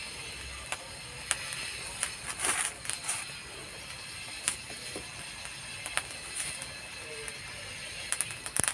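Bamboo shoots roasting over a charcoal fire in a clay stove, crackling: sharp pops and snaps about once a second, with a quick run of them about two and a half seconds in and again near the end.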